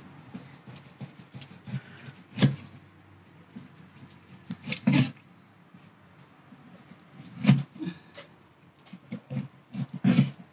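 Knife cutting grilled meat on a cutting board: irregular knocks a couple of seconds apart, with a quick run of several knocks near the end.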